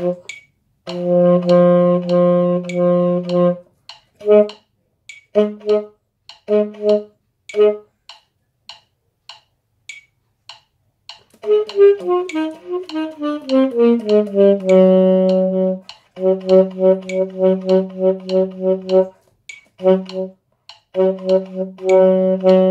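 Baritone saxophone playing a practice exercise: short detached notes and long held ones, a few seconds' pause about a third of the way in, then a run of notes falling step by step into a long low note and repeated notes after it. A metronome clicks about twice a second under the playing.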